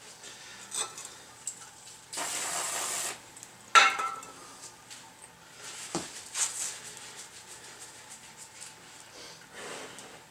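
Paper towel rustling and rubbing as small brake parts are wiped clean in gloved hands. A steady hiss lasting about a second comes about two seconds in, and a sharp metallic clink, the loudest sound, comes about four seconds in, followed by a few lighter knocks.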